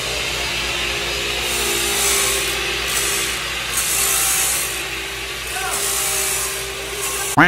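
Angle grinder cutting a steel bar: a steady motor whine under a hiss of grinding that swells and eases several times as the disc bites into the metal.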